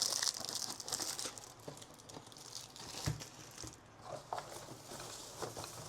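Packaging crinkling and rustling as items are taken out of an espresso machine's box, with a soft thump about three seconds in.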